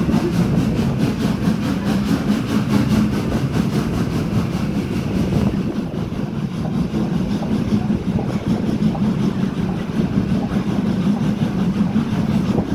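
Steady rumble of a train on the move, heard from aboard one of its coaches: wheels running on the rails.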